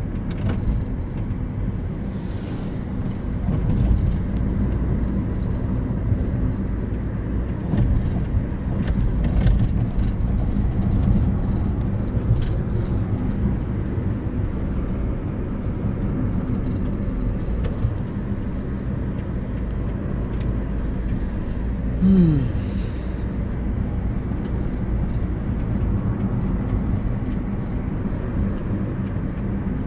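Steady low rumble of a car's engine and tyres heard inside the cabin of the moving car. About two-thirds of the way through there is one short sound that drops sharply in pitch.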